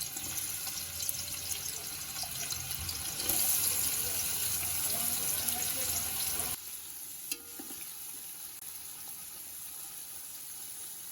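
Sliced onions frying in a generous amount of hot soybean oil, a steady sizzle for crisp fried onions (beresta). It grows louder a few seconds in, then drops suddenly to a quieter sizzle about two-thirds of the way through.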